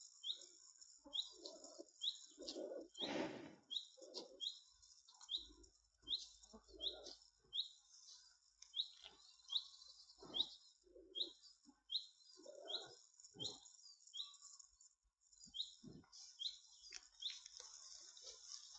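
Highland cattle cropping and chewing grass close by, in irregular crunching tears, the loudest about three seconds in. Behind it a bird repeats a short high chirp about every two-thirds of a second.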